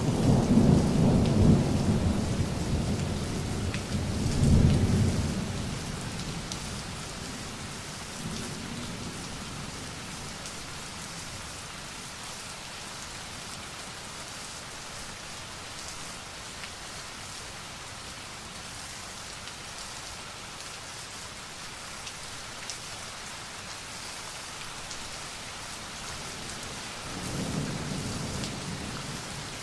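Thunderstorm: heavy rain hissing steadily with scattered drop ticks. A deep roll of thunder fills the first few seconds, loudest about four and a half seconds in, and dies away by about six seconds. Another rumble of thunder starts to build near the end.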